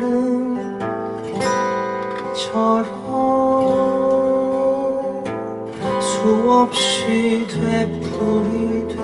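A man singing into a microphone, accompanied by his own strummed acoustic guitar, with sung notes held over changing chords.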